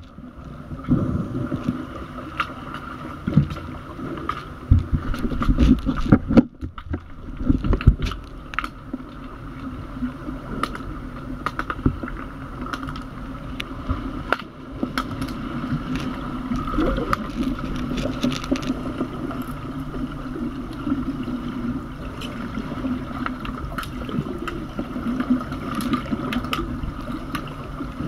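Underwater hockey play heard through an underwater camera in a swimming pool: a muffled, steady hum with many sharp clicks and knocks, and heavy low thumps and rumbling of water in the first several seconds.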